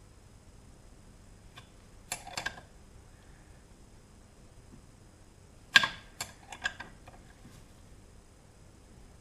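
Small metal clicks and taps as a non-brass grease nipple is worked into the threaded hole of a Lambretta TV175 disc brake hub. They come in two short clusters, about two seconds in and again around six to seven and a half seconds.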